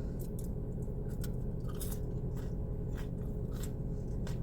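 A person chewing a mouthful of spaghetti close to the microphone: soft, irregular wet mouth clicks over a steady low hum.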